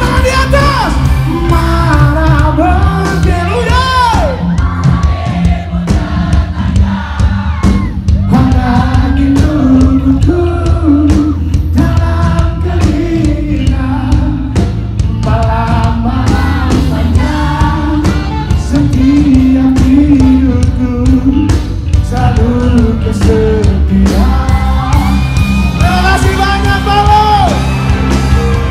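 Live pop-rock band playing loudly through a PA, with a male lead singer singing into a microphone over heavy bass and drums.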